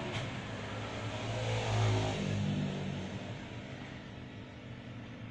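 Low engine hum that swells about two seconds in and then fades, falling slightly in pitch, with a faint click near the start.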